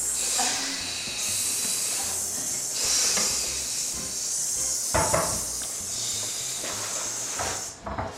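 A steady high-pitched hiss, with a sharp knock about five seconds in.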